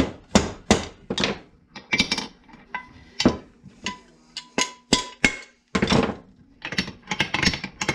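A mallet rapping on an assembled two-stroke chainsaw crankcase (Farmertec MS440 clone): about a dozen irregular sharp knocks, some with a short metallic ring. The rapping frees up the crankshaft bearings so the crank turns freely once the case halves are bolted together.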